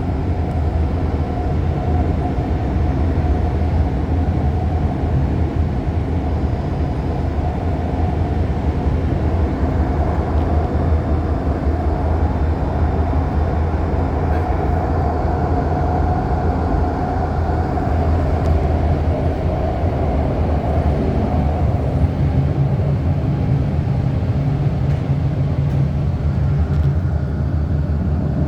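REM electric light-metro train running at speed, heard from inside the car: a steady rumble of wheels on rail with a motor hum. A faint whine swells in the middle and eases off, and the low rumble grows heavier near the end.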